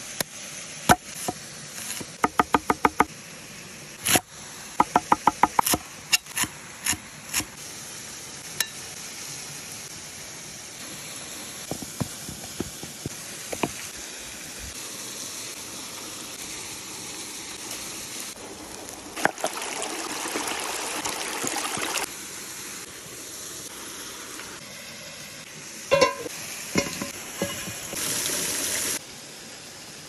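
A kitchen knife chopping on a wooden cutting board in two quick runs of strokes with single knocks between, then liquid poured into a clay bowl, and later a few knocks and rustling as food is worked by hand in a wooden bowl, over a steady rushing hiss.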